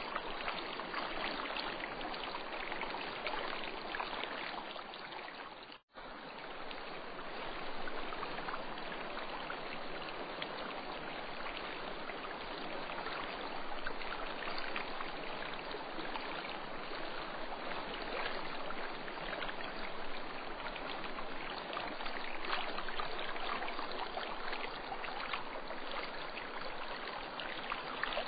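Steady rushing water of a stream, with a brief break in the sound about six seconds in.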